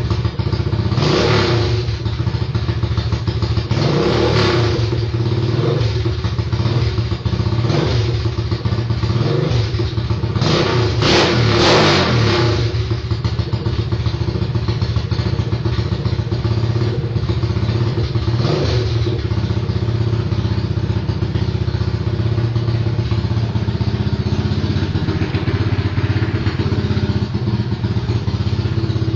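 Quad bike (ATV) engine running with its exhaust silencer removed, idling steadily between a string of short throttle blips, most of them in the first twelve seconds or so and one more a little later. After that it idles on steadily through the open exhaust.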